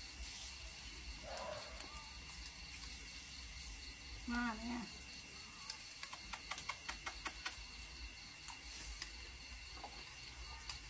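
Night ambience of insects shrilling as two steady high tones. About four seconds in comes a short animal call with a wavering pitch, and between six and seven and a half seconds there is a quick run of about ten light clicks.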